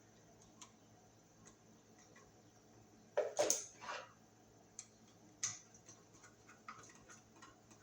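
Small clicks and scrapes of a screwdriver and copper wire against a new receptacle's brass terminal screw as the wire is hooked on and the screw tightened, with a louder scraping clatter about three seconds in and a sharp click about two seconds later.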